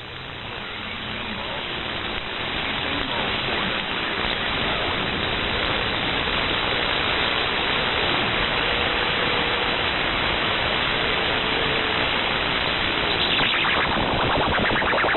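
Static hiss from a shortwave radio receiver tuned to 27.025 MHz on the 11-metre band, with no station talking. The hiss gets louder over the first five or six seconds, then holds steady.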